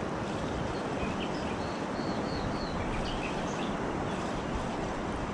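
Steady outdoor background noise, mostly a low rumble, with a few short, faint bird chirps, most of them between about one and three and a half seconds in.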